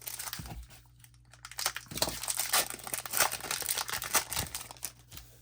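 A foil trading-card pack wrapper crinkling as it is torn open, with the crackling heaviest from about two seconds in.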